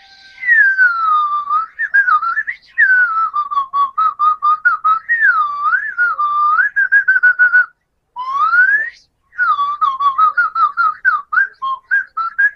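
Suling flute played to imitate birdsong: a single clear whistling tone swooping up and down and broken into rapid trills and chirps, with two short breaks a little past the middle.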